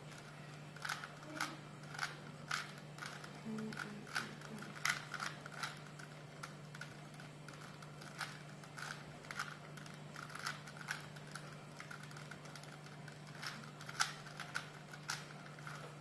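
A 3x3 Rubik's cube being twisted by hand: a quick, irregular run of plastic clicks and clacks as its layers are turned.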